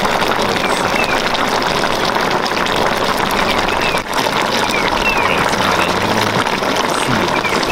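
Pot of fish and vegetables in coconut sauce bubbling at a steady simmer, a dense, even crackle of bubbles.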